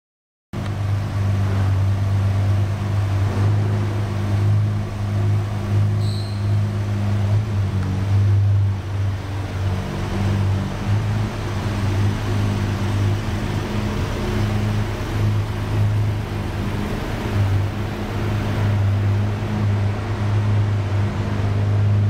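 2014 Jaguar F-Type S's supercharged 3.0-litre V6 idling steadily, starting about half a second in.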